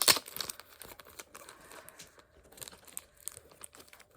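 Packaging being torn open and crinkled by hand: a loud rip right at the start, then scattered crackling and rustling as the wrapping is pulled apart.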